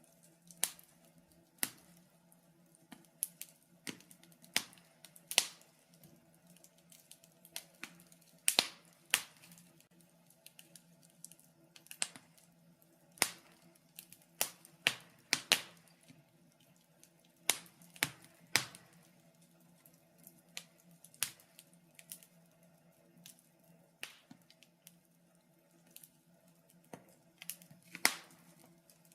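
Wood fire crackling in a fireplace: irregular sharp pops and snaps from the burning logs, some in quick clusters, over a faint steady low hum.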